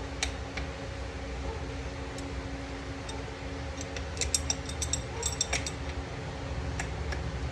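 Light metallic clicks and clinks from small metal parts being handled, a few scattered and then a quick cluster from about four to five and a half seconds in, over a steady low hum.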